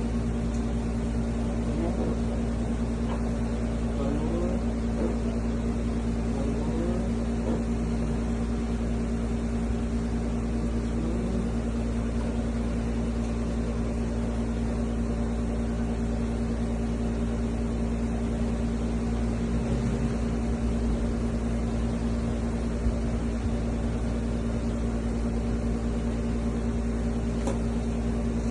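A steady machine hum with one strong low tone and a low rumble under it, unchanging throughout.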